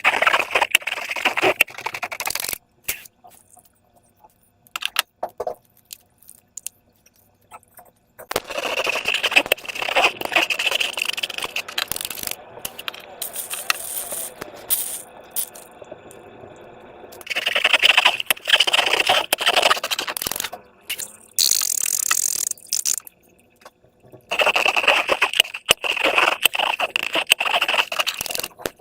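Slime being squished and worked by hand with balloons, in bursts of dense crackly clicking and squelching separated by short pauses.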